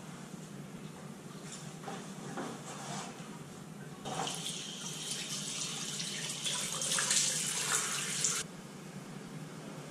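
Water running in a small restroom for about four seconds, starting and stopping abruptly, after faint rustling of clothing as a shirt is pulled on.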